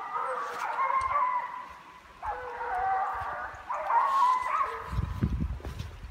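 Hunting hounds baying on a wild boar's trail: long, wavering cries in three bouts, about a second each. A low rumble comes in near the end.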